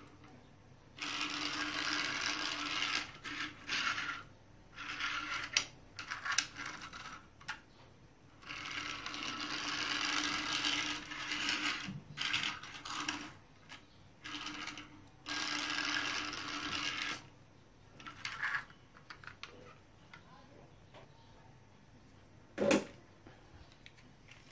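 Toy cars rolling across a tiled floor, their wheels running and rattling on the tiles in three main runs of a few seconds each, with shorter bits between. A single sharp click near the end.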